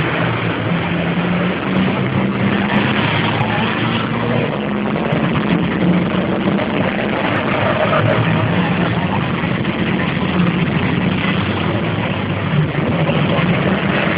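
Racing trucks' big diesel engines running loud as the trucks pass one after another around the circuit, a continuous engine noise whose pitch shifts as they go by.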